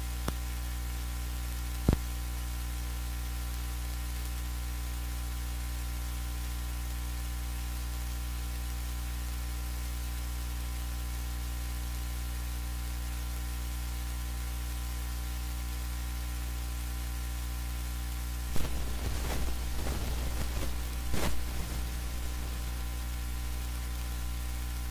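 Steady electrical hum with hiss, many even tones stacked together. There is a sharp click about two seconds in, and a few knocks and rustles in the last several seconds.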